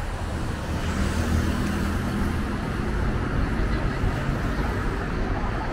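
Steady street traffic: the low hum of car engines and tyres on the road, with one vehicle's engine a little more prominent about a second in.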